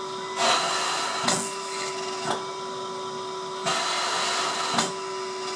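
Comfort Cough II mechanical cough assist (insufflator-exsufflator) running a cough cycle in its breath-synchronised auto mode. Over a steady blower hum come two rushes of air through the hose, each about a second long and ending in a sharp click.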